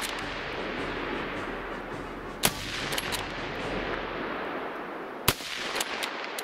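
Lee-Enfield No 4 Mk I* .303 rifle firing during rapid fire: two sharp shots about three seconds apart, with lighter clicks after the second as the bolt is cycled. A steady rushing background noise runs underneath.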